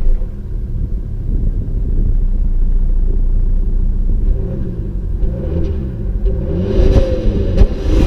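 Volvo C70 D5's five-cylinder turbodiesel running under acceleration, its engine note rising and falling several times over a heavy low rumble. Two sharp knocks come near the end.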